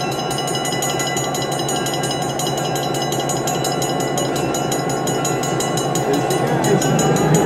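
EMD GP7 diesel locomotive's engine running at idle with a steady drone and rattle, its pitch rising near the end as the engine is throttled up to move off.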